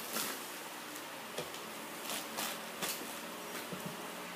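Soft rustling and light taps of paper and plastic packaging being handled: a handful of short, faint crinkles.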